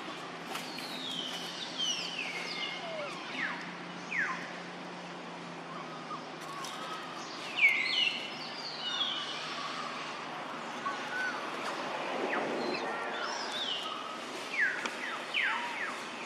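Clusters of short, high-pitched calls, each falling quickly in pitch, over an outdoor background with a faint low hum during the first half.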